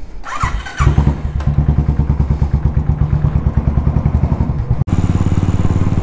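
Royal Enfield Thunderbird 350X's single-cylinder engine starting about a second in and running with a steady pulsing beat. An abrupt break near the end is followed by the engine running on more evenly.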